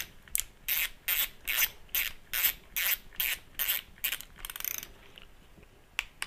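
Ratchet or torque wrench being swung back and forth, clicking through about ten quick strokes, roughly two and a half a second, as it runs a case bolt down. A short rattle follows, then a single sharp click near the end.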